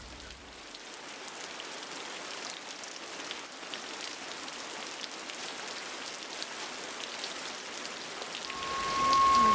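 Steady rain falling, with individual drops heard close by. Near the end the rain gets louder and a steady high tone starts.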